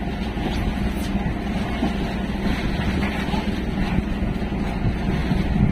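Outrigger fishing boat's engine running steadily, a low rumble under wind and water noise.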